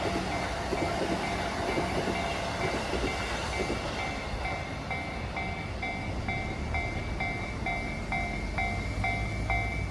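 Japanese level-crossing alarm ringing its electronic two-tone ding steadily, about twice a second, over the low rumble of a passing Keihin-Tohoku line electric commuter train, with a few wheel clicks in the second half.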